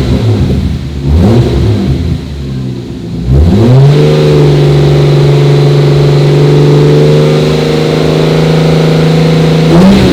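Toyota 2JZ-GTE twin-turbo inline-six, fitted with a Blitz Nur Spec exhaust, revved by throttle. Quick blips rise and fall in the first second or two, then the engine climbs and holds a steady raised rev for about six seconds before dropping back near the end. The engine is under misfire diagnosis and the owner says it is still popping.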